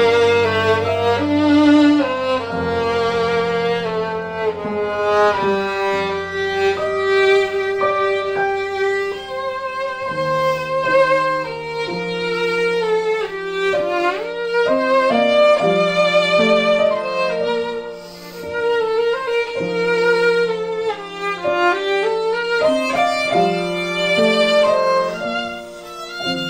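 Violin playing a melody with vibrato on the held notes, with piano accompaniment underneath.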